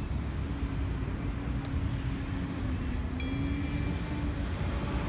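Steady low vehicle rumble with a held low hum, and a short high ringing tone about three seconds in.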